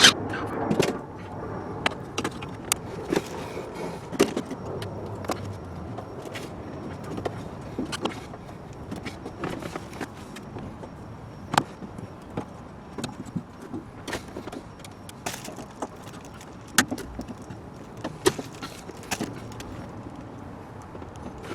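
Irregular sharp clicks and light metal clinks from hand work on the car's parts, over a faint steady background noise.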